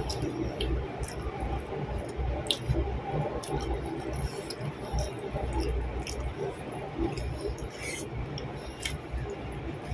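Close-miked chewing and wet mouth sounds of a person eating fried eggplant and rice by hand: irregular soft smacks and small clicks.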